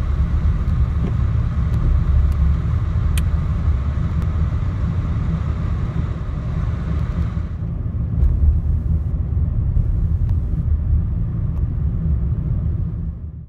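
Steady low rumble of a car driving on snow-covered, slushy road, heard from inside the cabin: tyre and road noise with the engine underneath. About halfway through the higher hiss drops away, and the sound cuts off suddenly at the very end.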